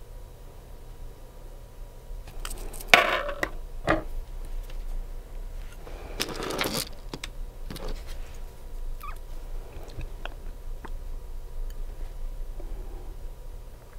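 Close-up handling sounds of nail-art work: small clicks and taps of tools and bottles, with a sharp tap about three seconds in and short noisy swishes just after it and again around six to seven seconds.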